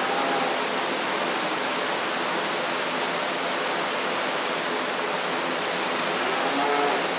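Steady rushing noise of a large electric barn fan running, with faint voices in the background near the start and near the end.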